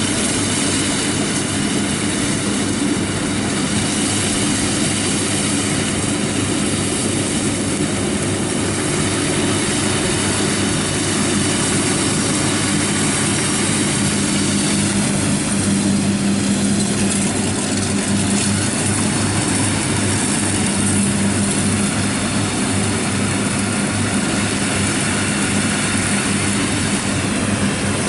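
Kubota rice combine harvester running steadily at work, its diesel engine drone mixed with the dense rushing noise of the machine.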